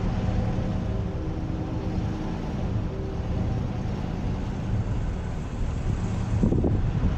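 An engine running steadily at low speed, a continuous low rumble with a faint steady hum over it.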